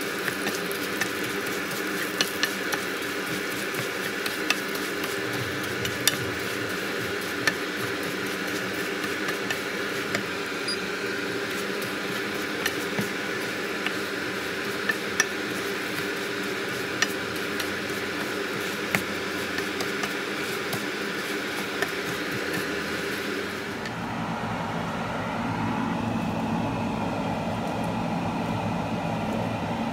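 Arborio rice sautéing in fat in a skillet while being stirred with a wooden spoon: a steady sizzle with scattered clicks and taps of the spoon against the pan. About 24 seconds in this gives way to a steady low hum without the clicks.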